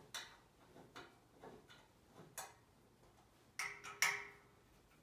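Irregular light clicks and taps of hand assembly work on the metal underside of a Herman Miller Envelop desk, with two louder clanks near the end, the last one ringing briefly.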